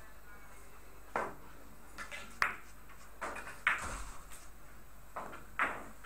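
Italian billiards shot on a carom table: the cue strikes the ball about a second in, followed by several sharp clicks of the balls hitting one another as they roll across the table.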